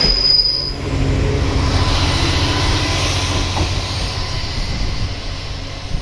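Diesel railcar pulling away from a station: a steady low engine rumble that fades as the train moves off. A short high wheel squeal comes in the first second.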